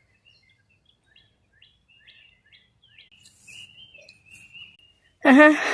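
Faint bird chirping: a string of short, high chirps, joined about three seconds in by a longer, even note.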